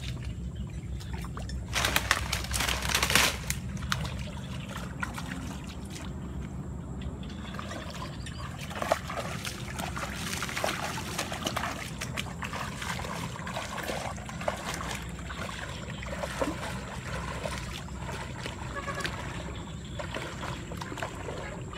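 Footsteps wading through shallow water, with irregular splashing and sloshing, over a steady low rumble. About two seconds in there is a louder rush of noise lasting about a second.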